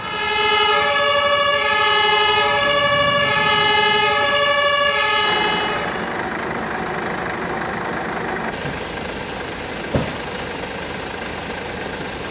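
German two-tone emergency-vehicle siren (Martinshorn) alternating between its high and low notes about twice a second, stopping about five seconds in. It is followed by a steady rushing background with a single sharp knock about ten seconds in.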